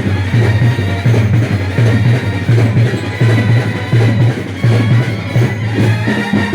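Music with a steady, deep bass beat repeating a little faster than once a second under a dense layer of sustained instrumental sound.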